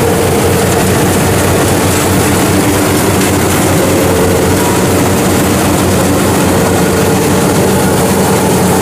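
Kubota rice combine harvester's diesel engine and threshing machinery running steadily under load as it cuts through the paddy, a loud, even drone.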